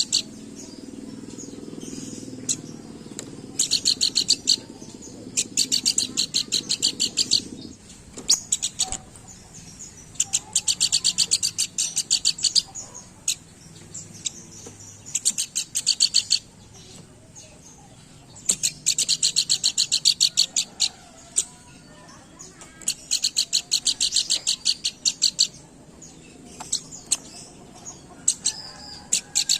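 Pelanduk bukit, a babbler, singing hard: fast, high, chattering trills about one to two seconds long, repeated every few seconds. A low hum sits under the first several seconds.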